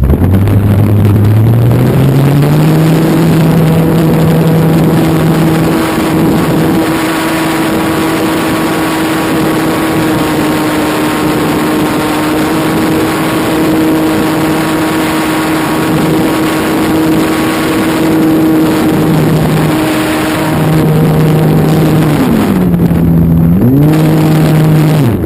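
Electric motor and propeller of a Carbon-Z Cub radio-controlled model plane throttling up over the first couple of seconds, then running steadily at high power. A little over 20 seconds in the throttle is eased back, with the pitch falling, then opened up again.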